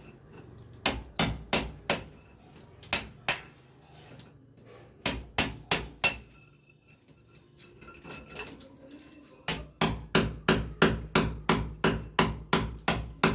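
Hammer blows in short groups, then a quicker run of about a dozen strikes at roughly three a second in the second half, the strikes ringing slightly like metal, typical of hammering in fixings during an air-conditioner installation.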